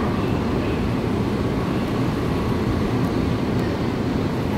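Steady rumble of a Seoul Line 8 subway car running, heard from inside the cabin.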